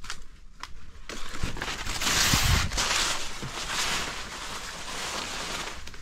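Close rustling and crunching noise with a few soft knocks, loudest about two to three seconds in.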